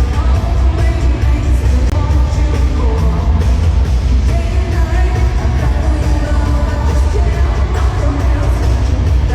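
Loud pop music with singing over a heavy, steady bass beat.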